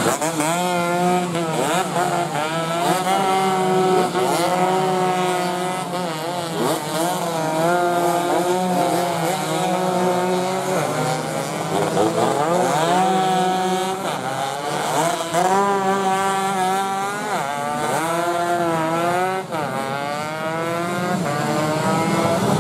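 Several 116cc two-stroke underbone (bebek) race motorcycles running flat out past the track edge, engines overlapping. Their pitch climbs through each gear and drops back at every shift, over and over.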